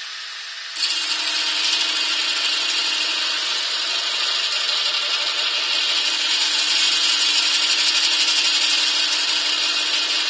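Knurling texturing tool pressed into a yew handle spinning on a wood lathe, a steady loud noise that starts about a second in, over the running lathe.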